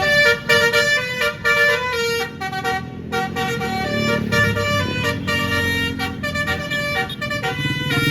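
Basuri multi-note musical bus air horn (telolet) playing a fast melody, the notes changing several times a second, over a low engine rumble.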